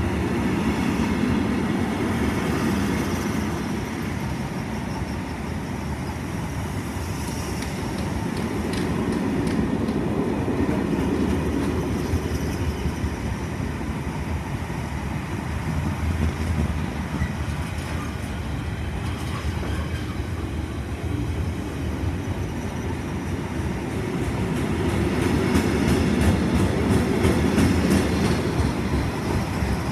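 Freight train's container flat wagons, mostly empty, rolling past on the rails. A steady rumble of wheels swells and fades, with runs of rhythmic clicks as wheels cross rail joints, loudest near the end.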